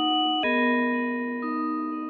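Music: an instrumental break with no vocals or drums, just held synth chords, a new chord coming in about half a second in and another near the end.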